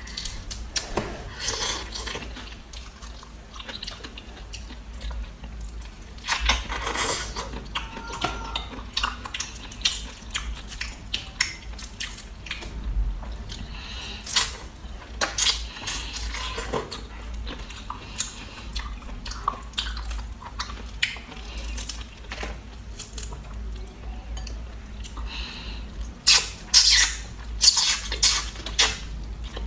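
Close-miked eating sounds: wet smacking, sucking and chewing of seafood such as shrimp, with many short sharp clicks throughout. A denser run of loud smacks comes near the end.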